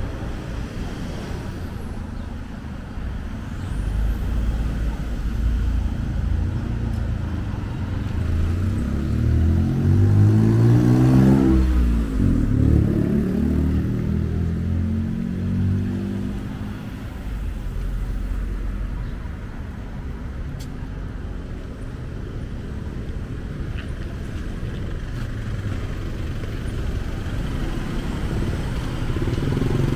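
City street traffic. A car drives past close by about a third of the way in, its engine pitch rising as it approaches and dropping as it goes past, over a steady background of passing cars and motorbikes.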